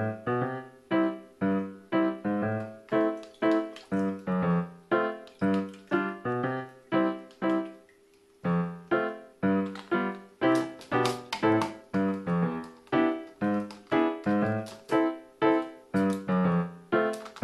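Background piano music: a light tune of evenly struck notes, about two a second, with a short break about eight seconds in.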